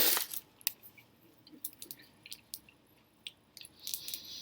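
Chewing food close to the microphone: scattered wet mouth clicks and smacks, with a short breathy burst at the start.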